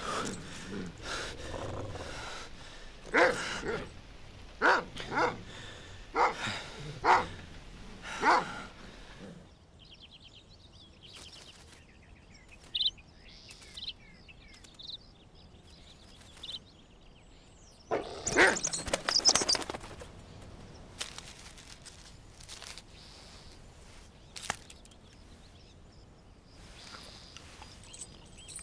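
A dog barking, a run of about eight short barks, then quieter woodland ambience with faint high chirps of birds and one brief loud rustling burst about two-thirds of the way through.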